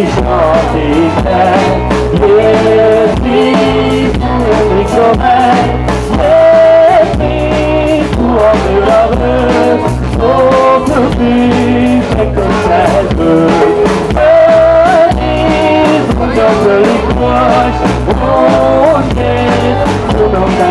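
Live band playing a song, with acoustic guitars and a drum kit under a woman's singing voice.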